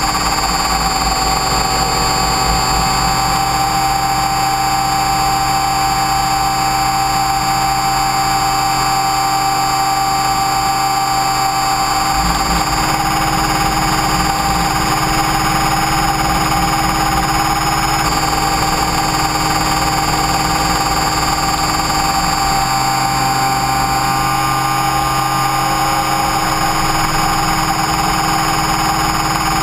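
Align T-Rex 550E electric RC helicopter heard from its onboard camera in flight: a steady whine from the electric motor and gears with rotor hum. The pitch shifts slightly a few times as the head speed changes.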